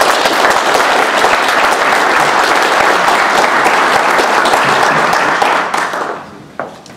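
Audience applauding: many people clapping together, steady, then dying away about six seconds in.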